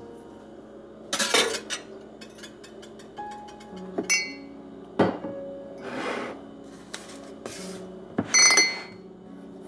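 Baking ingredients and kitchen utensils handled on a countertop: about half a dozen separate knocks and clinks, two of them with a brief ring, over soft background music.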